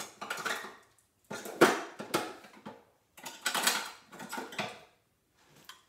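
Rustling and clicking handling noise close to the microphone, in four bursts, the longest over a second.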